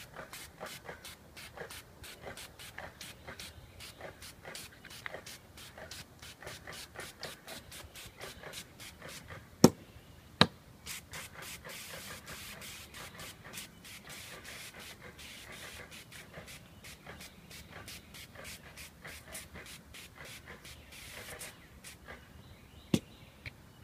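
12-volt pump sprayer spraying deck stain through a wand: an even run of clicks, about three a second, with a spray hiss swelling through the middle. Two sharp knocks come about ten seconds in and another near the end.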